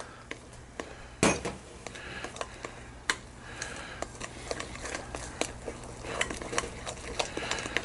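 Cobbler topping of flour and heavy cream being mixed in a glass mixing bowl, with light clicks and scrapes against the glass and a couple of louder knocks.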